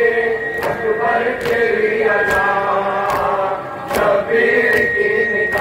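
Men's voices chanting a Shia lament (noha) together. In time with it come matam, hands striking chests in unison, one beat a little under every second.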